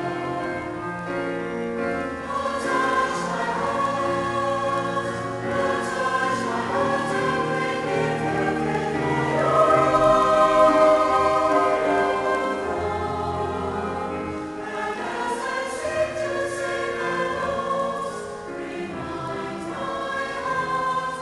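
Mixed choir of men and women in Salvation Army uniform singing a sacred song in sustained phrases, swelling loudest about halfway through.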